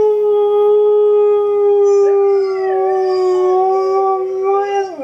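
A husky's big howl: one long call held on a nearly steady pitch, wavering slightly in its second half and breaking off at the end.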